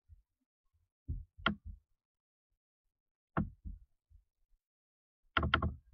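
Scattered short clicks and knocks from a computer mouse and keyboard being worked: a couple about a second in, one more after about three seconds, and a quick run of several near the end.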